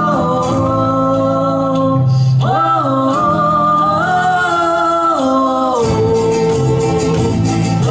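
A woman singing long held notes without words over acoustic guitar and double bass in a live performance. Her voice steps up in pitch twice in the first half and settles onto a lower held note near the end.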